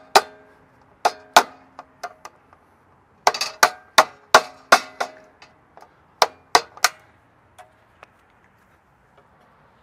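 Metal-on-metal tapping: lineman's pliers used as a hammer on the butt of a flathead screwdriver, driving a conduit lock nut tight inside a metal disconnect box. Sharp ringing clinks come in irregular bunches, with a quick run of about six strikes in the middle, and stop near the end.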